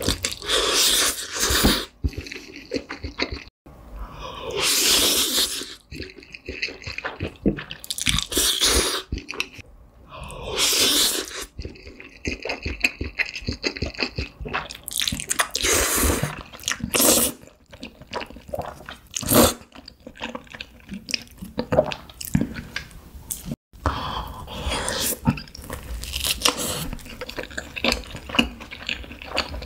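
Close-miked eating sounds: long wet slurps of noodles in black bean sauce, each lasting about a second and coming several times, with clicky chewing in between. Near the end, chewing and slurping of cream pasta noodles.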